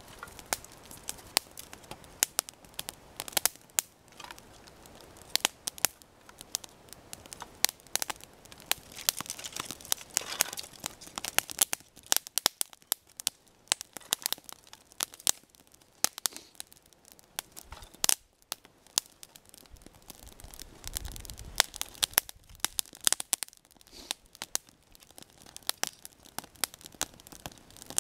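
Small fire of resinous fatwood shavings and split kindling burning, with irregular sharp crackles and pops.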